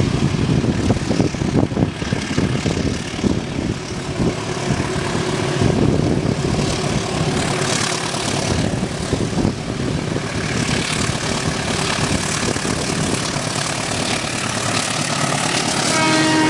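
A train running along the track: a steady, loud rumble and rattle of wheels on rail.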